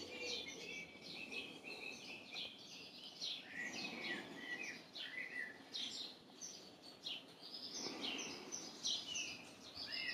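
Small birds chirping and singing, a busy run of short, quick high notes, heard faintly.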